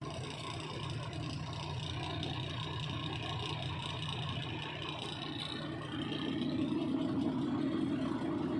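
Heavy equipment's diesel engine running steadily, getting louder about six seconds in.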